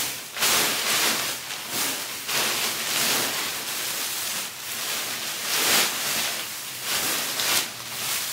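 Packages rustling as they are stuffed by hand into a post-office mail bag, in irregular surges of rustling noise.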